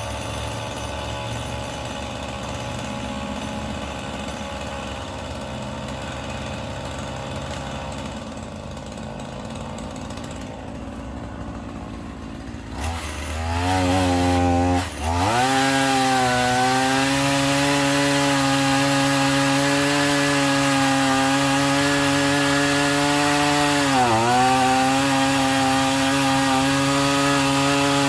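Chainsaw idling, then revving up about halfway through and running at high speed, cutting into the root ball of a fallen oak tree. The pitch dips briefly about two-thirds of the way in.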